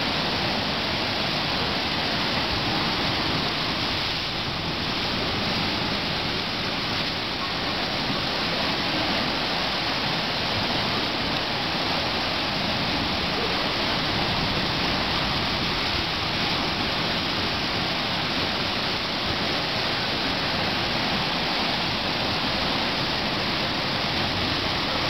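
Sea water surging and churning over the rocks of an ocean-fed sinkhole: a steady rushing wash of foaming surf.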